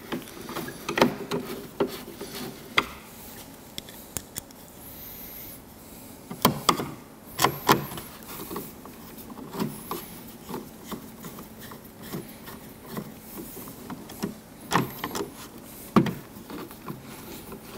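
Phillips screws being started by hand through a plastic saddlebag-lid base piece into a speaker grill: irregular clicks and taps of hard plastic with rubbing in between, and a few sharper knocks.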